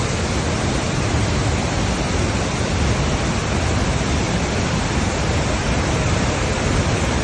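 Steady, loud rush of the Devil's Throat (Garganta del Diablo) at Iguazu Falls, a huge volume of water falling without a break.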